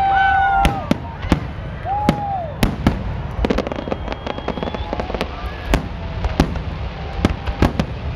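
Aerial fireworks display: an irregular run of sharp bangs and crackles from bursting shells over a low rumble, with a brief held tone near the start and again about two seconds in.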